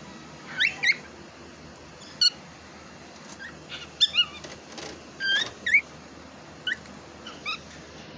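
Cockatiel chirping: a string of short, sharp calls, some sliding up in pitch and some down, with irregular gaps of up to a second or so between them.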